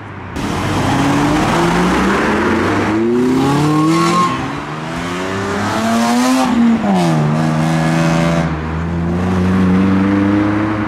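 A car doing donuts: its engine revs up and drops back several times, holds steady revs for a couple of seconds past the middle, then climbs again near the end, over the hiss and squeal of spinning tyres. The car is a BMW.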